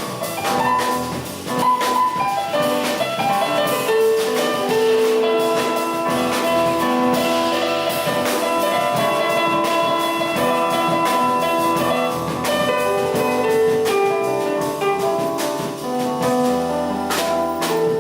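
Jazz trio playing: a piano improvises a melody on a small set of five notes over a drum kit with frequent cymbal and drum hits.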